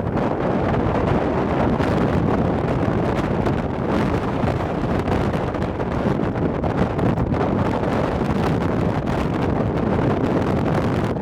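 Strong wind buffeting the microphone: a steady, loud rumbling rush with no pauses.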